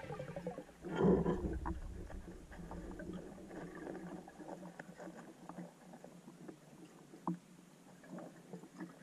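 Muffled underwater sound heard through a camera's waterproof housing: a swell of water noise about a second in, then scattered faint clicks and knocks as a diver handles an object picked up from the bottom.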